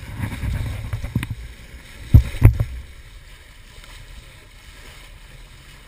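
Water rushing and splashing along the hull of a small sailboat under way in choppy sea, with wind on the microphone. Two heavy thumps come a third of a second apart just past two seconds in, after which the rush settles to a quieter hiss.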